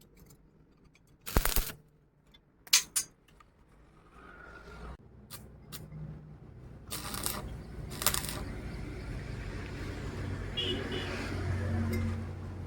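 A few sharp knocks or clinks of hard objects, four in all, then a steady low rumbling noise that grows louder toward the end.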